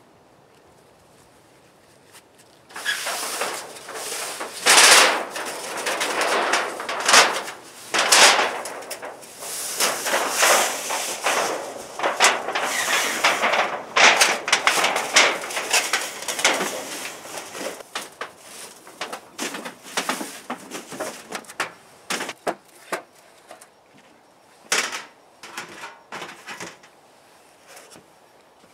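Thin rolled sheet-metal stove pipe for a titanium wood stove being rolled and worked into its tube: a long run of metallic crinkling, scraping and rattling that begins about three seconds in and thins out into scattered clicks in the last several seconds.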